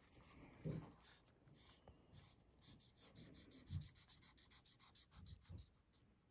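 Faint scratching of a liquid chalk marker's tip stroking quickly back and forth on black chalk-art card, with a few soft low knocks.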